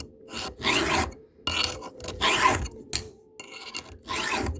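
Round file rasping across a chainsaw chain's cutter tooth in about five strokes, a little under a second apart, taking metal off a jagged, bent tooth to resharpen it.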